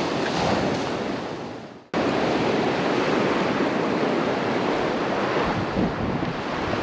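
Sea waves washing on the shore, with wind buffeting the microphone. The sound fades away and then cuts abruptly back in about two seconds in, at an edit.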